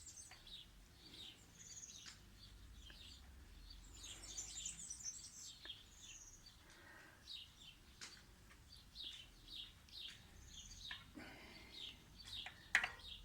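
Small birds chirping, with short high calls repeating over and over, and a couple of faint clicks near the end.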